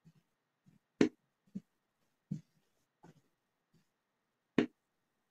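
Steel-tip darts striking a Winmau Blade 6 bristle dartboard: a few short, sharp thuds a second or so apart, the loudest about a second in and near the end.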